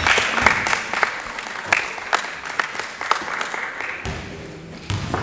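Spectators clapping at a youth basketball game, a dense patter of claps that dies away about four seconds in. A basketball starts bouncing near the end.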